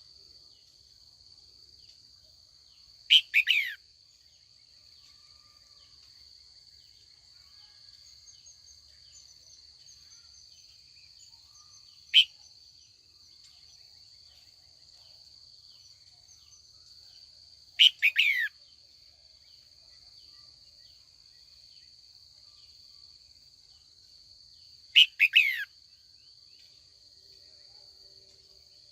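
Red-whiskered bulbul calling four times, each a short burst of quick falling notes, several seconds apart. A steady high insect drone runs underneath.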